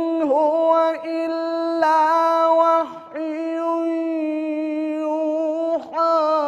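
A young man's voice reciting the Quran in the melodic, chanted style, stretching the vowels into long ornamented held notes through a microphone. Each note wavers slightly in pitch, with brief breaks about a second in, about three seconds in and near the end.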